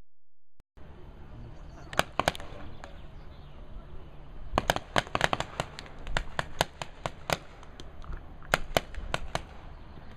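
Paintball markers firing across the field: sharp pops starting about two seconds in, irregularly spaced, some in rapid bursts of several shots.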